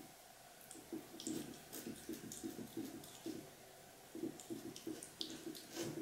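Silver tabby cat licking the edge of a white plastic container: a quick run of short licks, about four a second, starting about a second in.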